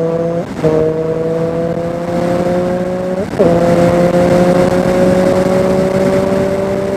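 Motorcycle engine pulling under steady acceleration, its pitch climbing slowly and dipping at two upshifts, about half a second and three seconds in.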